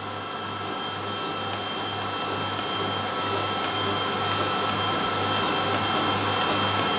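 IBDTG UV roll-to-roll DTF printer printing and running normally: a steady whir of motors and fans with several high steady whines and a low hum that pulses about twice a second, growing slightly louder.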